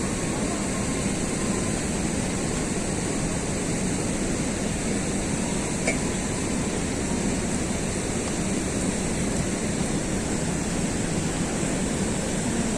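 Steady rush of falling water from a waterfall, an even roar with no breaks.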